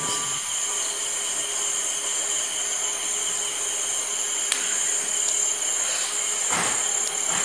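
Steady high-pitched chirring of crickets at night over a constant background hiss, with a brief rustle about six and a half seconds in.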